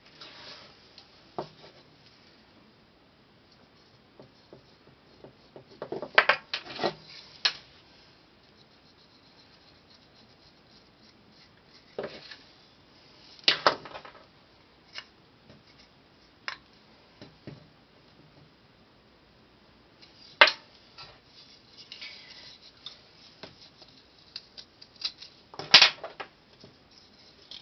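Knife cutting and scraping into a hard sculpted doll part in short, scattered scrapes, with sharp clicks of tools being picked up and set down.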